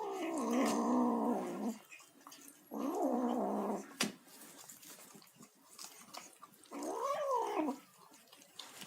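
Kitten making noises while eating: three drawn-out pitched calls. The first is the longest, nearly two seconds, and the last rises and then falls. A sharp click comes about four seconds in.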